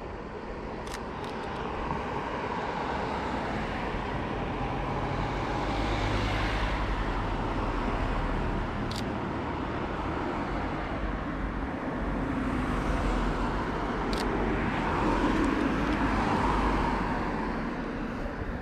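Motor vehicles passing, a broad rushing noise that swells about six seconds in and again near the end. A few sharp camera shutter clicks from a Sony Alpha 6000 sit on top.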